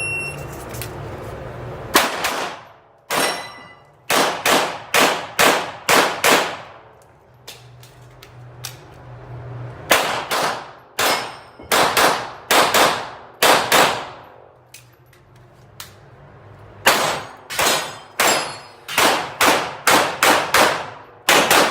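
Glock pistol fired in three rapid strings during an IPSC stage, about two shots a second, each string separated by a pause of a few seconds. A short beep right at the start, after the standby command, is the start signal.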